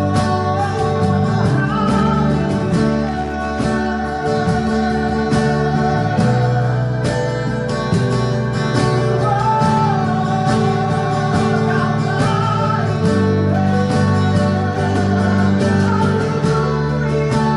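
Christian worship music: strummed guitar and sustained chords under a sung melody of long held notes.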